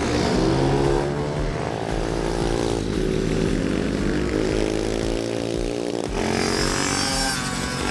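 Mini racing motorcycle engine revving hard as it rides past. Its pitch climbs, then drops back several times as the revs are taken up and let off.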